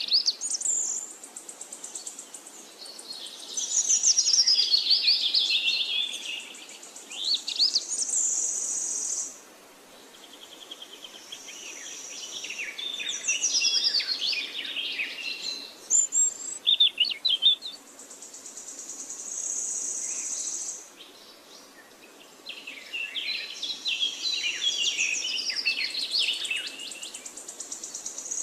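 Outdoor chorus of many small birds chirping and calling in quick, varied notes, with a high steady insect buzz that comes and goes in stretches of several seconds.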